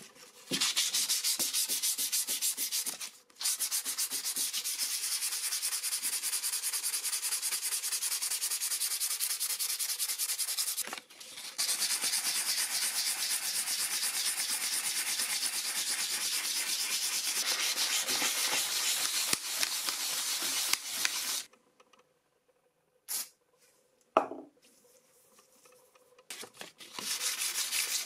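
Sanding: a fast, even rubbing of many quick strokes in long spells, broken briefly about 3 and 11 seconds in, stopping about 21 seconds in and starting again near the end.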